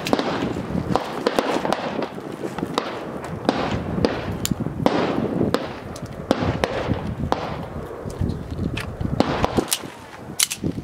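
A long string of handgun shots fired in quick pairs and runs, a fraction of a second apart, each cracking sharply and ringing off briefly. This is a shooter firing through a practical-shooting stage.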